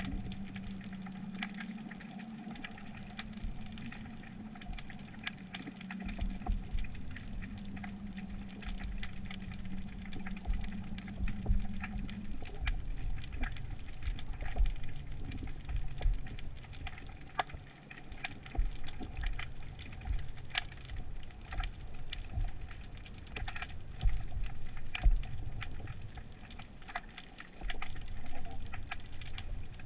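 Underwater sound picked up by a submerged GoPro: a constant, irregular crackle of sharp clicks over a steady low hum that drops in pitch about twelve seconds in.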